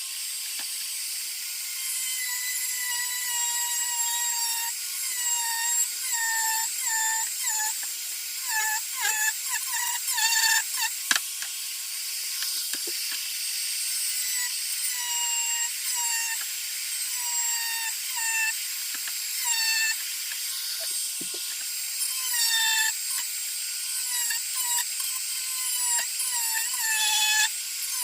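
Dremel 4300 rotary tool running at high speed while carving red cedar, a steady whine whose pitch sags briefly and recovers each time the bit bites into the wood. The dips come quicker and closer together about a third of the way in and again near the end.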